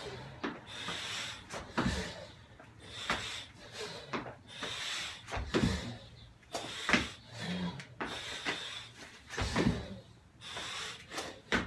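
Burpees on a rubber gym floor: a thud every second or two as the hands and feet hit the mat and land from each jump, with heavy breathing between the thuds.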